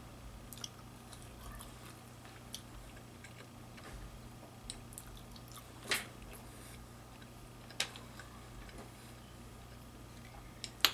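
Quiet chewing of seafood, with a handful of short, wet mouth clicks and smacks spread through; the sharpest come about six and eight seconds in.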